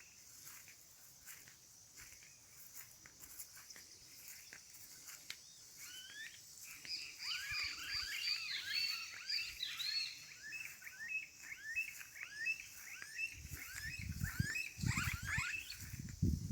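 Birds chirping in a dense, quick chatter of short up-and-down calls that starts about six seconds in, over a steady high insect buzz. Low rumbling and thumps join near the end.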